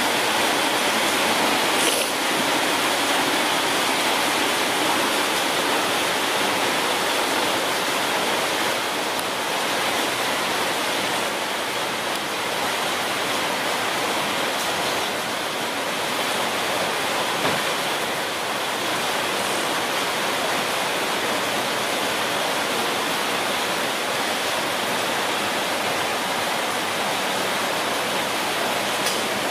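Steady, even rushing hiss with no rhythm or pitch, like running water or white noise.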